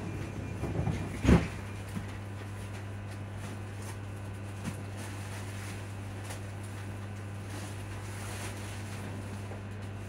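Traction cooling fans of a stationary Alstom electric train running with a steady low hum. A single loud thump sounds about a second in.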